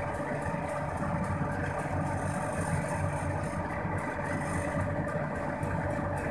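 Turbo broiler (halogen convection oven) preheating, its fan running with a steady hum.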